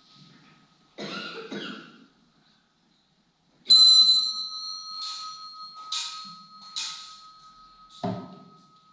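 Altar bell rung at the elevation of the consecrated host: a sudden bright ring a little under four seconds in, then four more strikes under a second apart, the tone ringing on between them.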